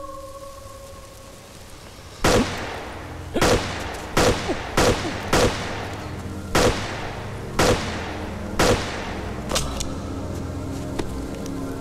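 Gunshots: about nine sharp shots at uneven intervals of roughly half a second to a second, each with a short ringing tail, the last one fainter, over a low steady drone.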